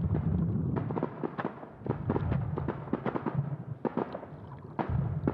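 Aerial fireworks display: a dense, irregular run of sharp cracks and bangs, several a second, over a steady low rumble.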